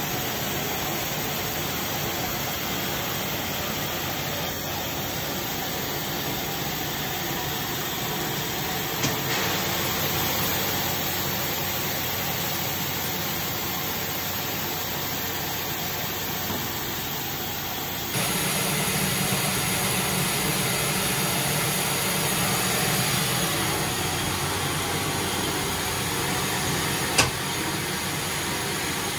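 Coin-operated rice polishing machine running steadily as it mills brown rice, a constant whir mixed with the hiss of freshly polished rice streaming into its stainless-steel hopper. A sharp click sounds near the end.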